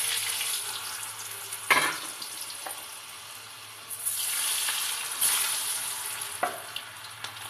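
Cut potato pieces sizzling as they are dropped into hot mustard oil in an iron kadhai, the sizzle flaring up again about four and five seconds in as more pieces go in. A single sharp knock against the pan comes just under two seconds in.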